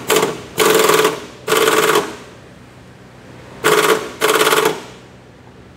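Impact wrench hammering on the crankshaft pulley bolt in five rattling bursts, a short one and then four of about half a second each. The pulley is being bolted back on after a crankshaft oil seal replacement.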